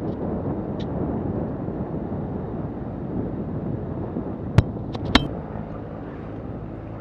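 Steady rush of wind on the microphone and water streaming along the hull of a sailboat under way at about eight knots. Two sharp knocks come about two-thirds of the way in.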